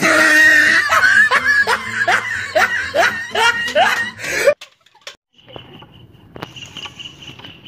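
A person laughing in a quick run of separate 'ha's, about two a second, that cuts off sharply about four and a half seconds in. After a brief gap, a faint steady high tone sounds under quiet background.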